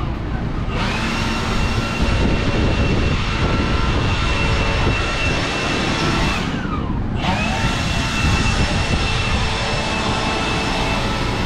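Large drum shop fan running steadily: a loud rush of air with a faint high whine from the fan.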